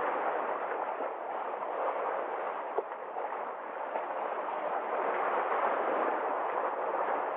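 Sea waves rushing onto the shore: a steady wash of surf that swells and eases over a few seconds, with a single brief tick about three seconds in.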